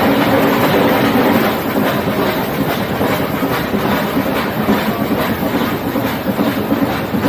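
Nilgiri Mountain Railway toy train running slowly uphill, its wheels clattering over the rail joints with a steady rumble. A quick run of clicks sets in about a second and a half in.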